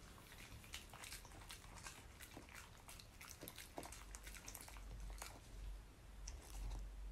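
A Samoyed chewing and biting food: a run of faint, sharp wet clicks and crunches, most frequent in the first few seconds and thinning out after.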